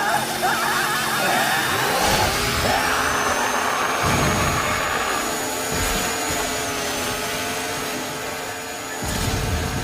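Chainsaw engine sound effect running and revving, with a high whine that rises about two seconds in and then holds steady.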